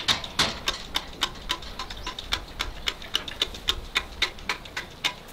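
Newborn calf sucking milk from a metal bucket: a steady run of short wet clicking sucks, about four a second.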